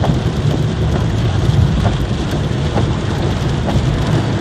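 Steady rush of tyres on a wet road and rain on the car, heard from inside the cabin, with a low rumble and scattered light ticks.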